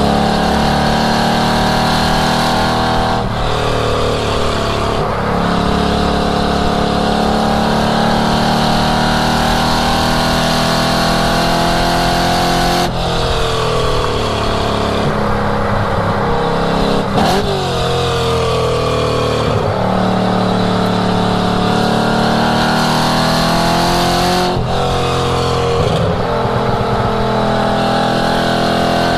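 1967 Ford Mustang's engine driven hard on a racetrack at full throttle. Its pitch climbs steadily and then drops suddenly a few times as it shifts or lifts.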